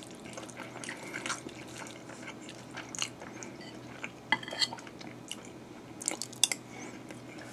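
A person eating fried rice with a metal spoon: chewing, with scattered small clicks of the spoon against the plate, a few sharper ones near the middle and about six seconds in.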